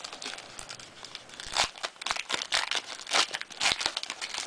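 The wrapper of an Upper Deck basketball card pack crinkling and tearing as it is opened by hand, in a string of short crackly rustles.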